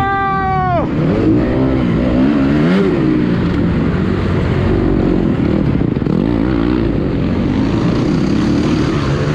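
Motocross bike engine heard from on the bike: a high rev that drops away sharply about a second in, then the engine note keeps rising and falling as the throttle is opened and closed.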